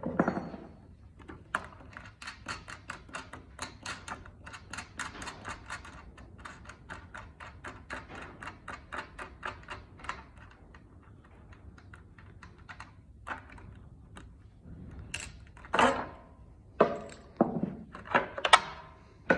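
Parts of a Honda GX390's air cleaner being taken apart: a long run of rapid, even clicks, about five a second, then sparser clicks, and a few louder plastic knocks near the end as the housing is handled.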